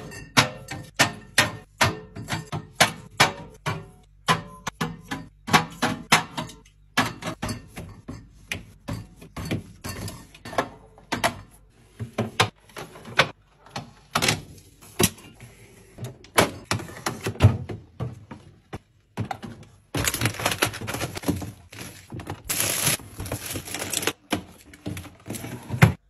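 Glass bottles, drink cans and clear plastic bins being set down one after another on a fridge's glass shelves: a run of sharp clinks and knocks, about one or two a second. For the last few seconds the knocks give way to denser rustling and scraping.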